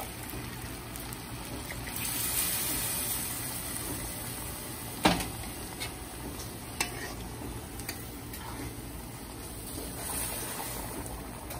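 Liquid split-pea dal pouring into a large aluminium pot of seasoned rice and being stirred in with a metal spoon: a steady wet sloshing, with a few clicks of the spoon against the pot, the sharpest about five seconds in.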